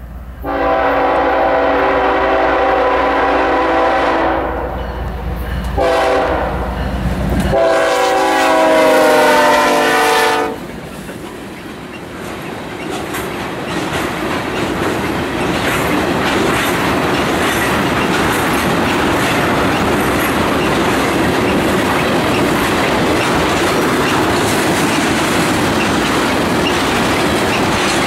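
Multi-chime air horn of a BNSF diesel locomotive sounding three blasts, roughly four, two and three seconds long, for a grade crossing, over the low rumble of the diesel engines. The locomotives then pass and a long string of tank cars rolls by, wheels clacking over the rail joints.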